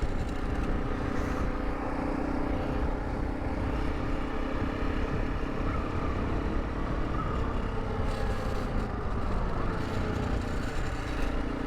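Honda CRF300 Rally's single-cylinder engine running steadily under way with wind rush, just after an engine rebuild.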